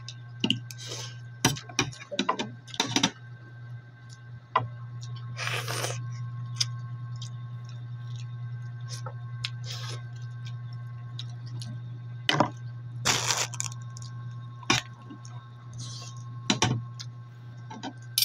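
Mukbang eating of steamed mussels with rice: a fork and spoon click and scrape on the plate and the shells, with chewing and a couple of longer noisy slurps. A steady low hum runs underneath.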